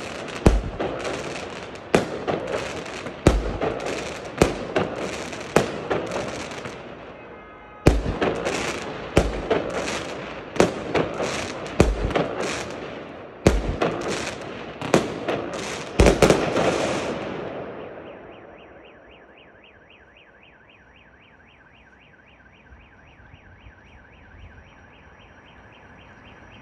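Aerial fireworks salute: shells bursting in loud bangs about once a second, each followed by crackling, with a short lull about seven seconds in. The bursts stop after about sixteen seconds and the crackle fades away.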